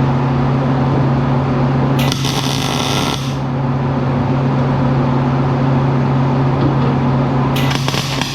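A steady mechanical hum from a workshop machine, with two harsh hissing bursts of about a second each, one about two seconds in and one near the end.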